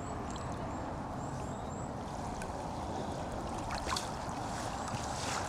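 Steady lakeside ambience: water moving at the edge of the lake, with a few faint clicks.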